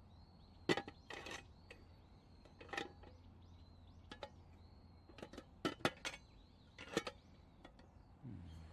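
Thin wire bail handle of an aluminium army mess kit (battle hangou) clinking against the pot's lugs and body as the pot is lifted and swung by it, about six sharp metallic clinks spread irregularly.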